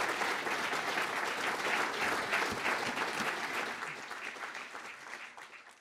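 Audience applauding, a dense patter of many hands clapping that tapers off near the end.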